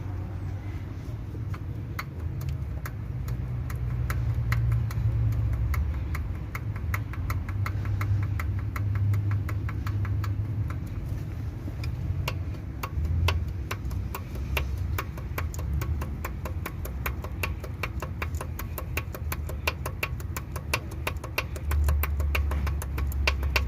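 Hyundai Gamma-series inline-four petrol engine (G4FA/G4FC) running at idle with a sharp, regular ticking knock over its hum. The ticks come sparsely at first and grow quicker and denser in the second half. The owner traced the noise to cylinder 3, where a valve guide had dropped.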